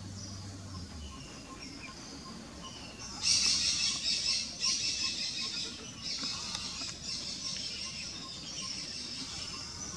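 Birds calling: first a short high note repeated over and over, then from about three seconds in a louder, dense chattering of chirps.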